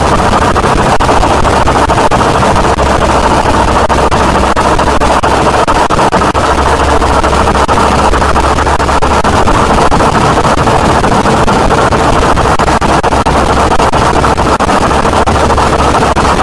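Harsh noise (power electronics) music: a loud, unbroken wall of distorted static with constant fine crackle and a deep low hum underneath.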